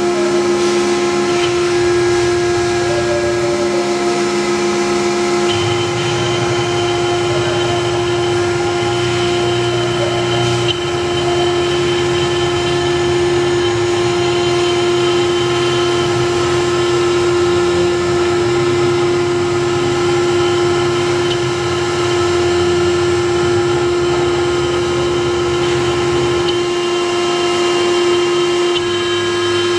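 CNC router spindle running with a steady whine while its engraving bit cuts lines into a wet stone slab. Under it, a lower motor hum shifts in pitch every few seconds as the head moves back and forth.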